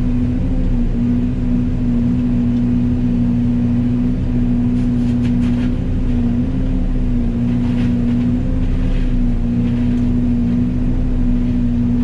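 Yanmar Vio80 excavator running a Fecon FMX36 forestry mulching head: a loud, steady mechanical drone, its pitch dipping briefly a few times.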